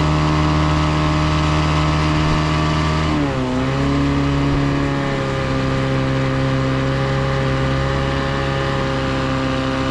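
A 9.8 hp Mercury two-stroke outboard motor running steadily under way. About three seconds in it is throttled back, its pitch dropping, then it holds steady at the lower speed.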